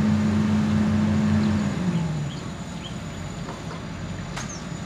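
Hitachi Zaxis 200 excavator's diesel engine running at a steady high speed, then winding down to a lower idle about two seconds in, its hum dropping in pitch and getting quieter.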